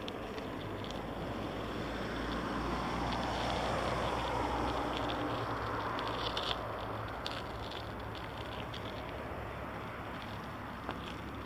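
CP diesel multiple unit passing. Its engine hum and running noise swell to a peak about four seconds in, then fade as it moves off, with a few light clicks around six seconds.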